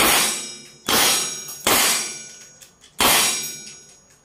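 A revolver fired four times at uneven intervals: sharp reports, each followed by a ringing tail that dies away over about a second.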